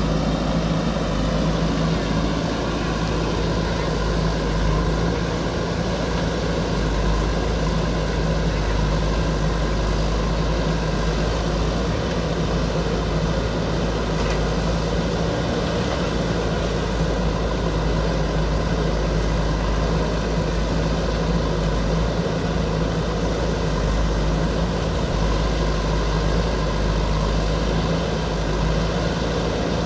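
Diesel engine of a JCB backhoe loader running steadily at an even pitch.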